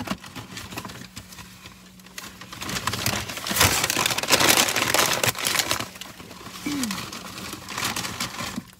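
Fast-food paper packaging crinkling and rustling close by, a dense run of crackles that swells about three seconds in and eases off after about five and a half seconds.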